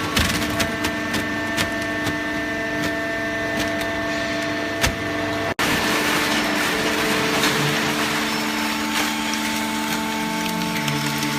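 Top-load cardboard baler's hydraulic pump and motor running with a steady hum and scattered clicks and knocks; the hum's pitch shifts near the end. The sound cuts out for an instant about five and a half seconds in.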